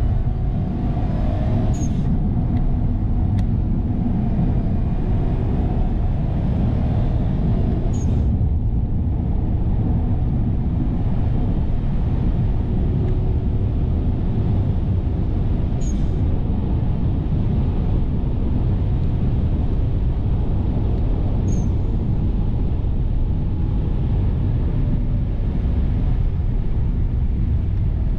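In-cabin sound of a 2005 Subaru Legacy 2.0 turbo's flat-four engine driven hard: a loud, steady, deep drone of engine and road noise, rising in pitch early on as the car accelerates. Four short sharp clicks stand out, spaced several seconds apart.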